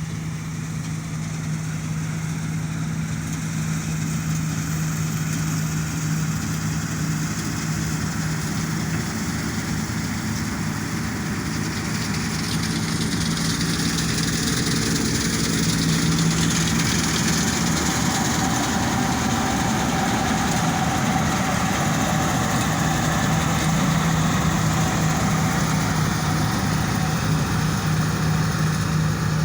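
Combine harvester's engine running steadily with a deep hum, growing gradually louder, with a higher hiss joining about halfway.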